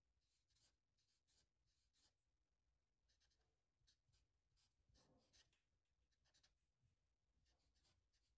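Very faint sound of a felt-tip dry-erase marker drawing on paper: a series of short strokes, the busiest about five seconds in.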